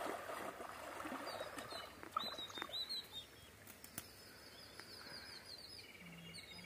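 Water splashing as a person wades through a shallow stream, easing off after about two seconds. Birds chirp, with a quick run of repeated high chirps midway.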